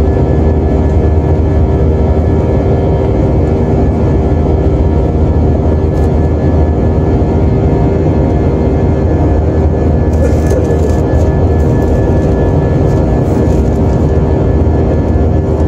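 Jet airliner cabin noise heard from a window seat over the wing while climbing: the engines and rushing air make a steady, loud, low noise with a constant hum tone running through it.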